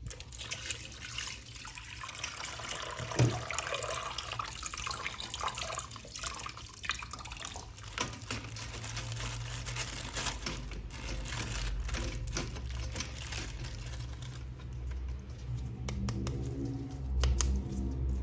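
Water from a tap running while a plastic action figure is washed by hand, with small clicks and knocks of handling.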